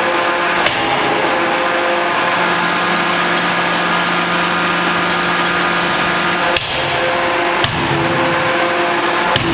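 CNC closed-die forging hammer working: a steady machine hum with a few sharp, separate blows, about four in all, two of them close together past the middle.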